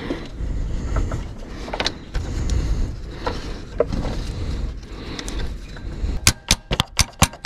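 Handling noise from a ribbed power steering belt being worked by hand onto a car's crankshaft pulley: scuffing and light taps over a low steady rumble, then a quick run of sharp clicks about six seconds in.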